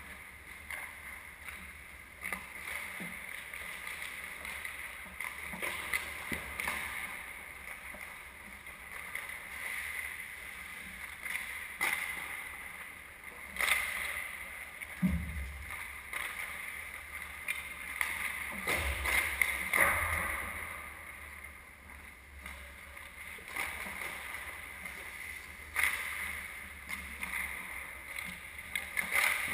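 Ice hockey play: skates scraping and carving the ice, with the sharp clacks of sticks and puck scattered throughout and a few heavy low thumps about halfway through.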